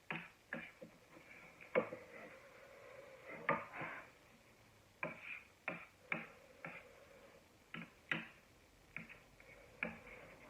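Eating sounds of a person chewing and slurping spicy instant ramen noodles, heard close up: irregular wet clicks and short smacking bursts, about a dozen of them.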